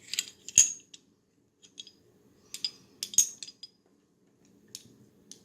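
Steel parts of a 1911 pistol clicking and clinking as it is reassembled: barrel and slide being handled and fitted together. Sharp clicks in the first second, the loudest at about half a second, another group around three seconds in, and fainter ticks near the end.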